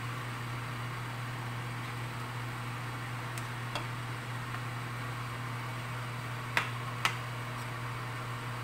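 Steady low hum of kitchen room tone with a few light clinks as a spatula and a plate touch a stainless steel pan of stew; two sharper clinks come close together about two-thirds of the way in.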